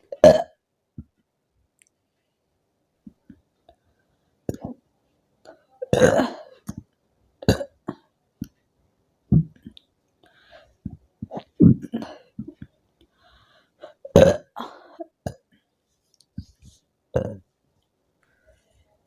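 A woman burping over and over after gulping fizzy soda, a string of separate burps every second or two. The loudest come near the start and about six and fourteen seconds in.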